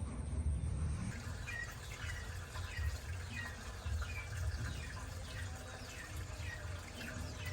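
Small bird chirping, a steady run of short falling notes about two a second starting about a second in, over a low rumble.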